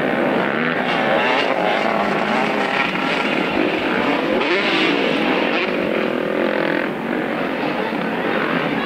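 Several off-road motorcycle engines revving at once, their overlapping pitches rising and falling steadily as the bikes race over a dirt track.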